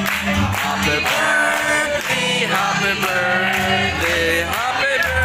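Loud music playing: a song with singing over a steady bass line and a regular drum beat.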